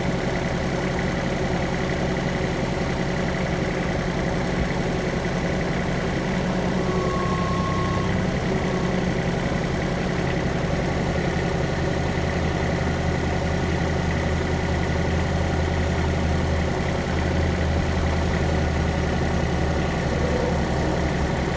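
A vehicle engine running steadily at low speed while pulling a felled tree. Its low rumble gets stronger about eight seconds in.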